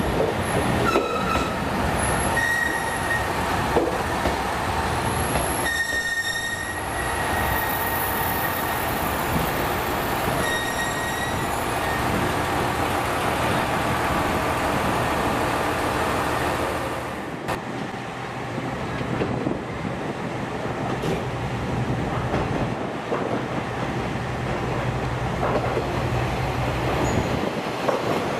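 Diesel railcar running on the station tracks, its wheels squealing high-pitched on and off during the first dozen seconds, then a steady running rumble with a low hum.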